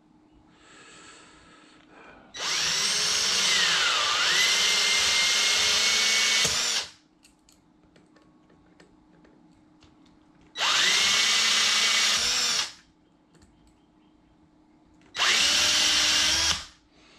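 Cordless drill running in three bursts, a long one of about four seconds and then two shorter ones. Each starts with a rising whine, and in the first the pitch dips once under load. The drill is boring out the too-small nose piece of a cord-grip fitting.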